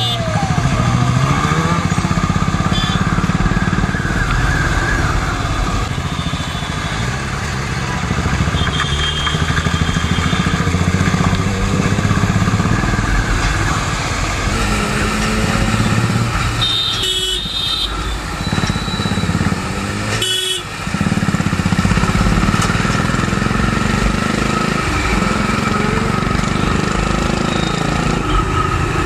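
Motorcycle engines running in city traffic, their pitch rising and falling as they accelerate and ease off, over road and wind noise. Several short vehicle horn honks come from the traffic, the loudest about two-thirds of the way through.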